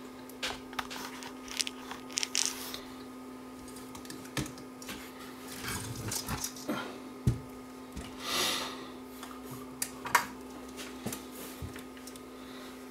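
Scattered light clicks, knocks and rustles of hands handling an open stereo receiver's chassis and wiring on a workbench, over a steady low hum.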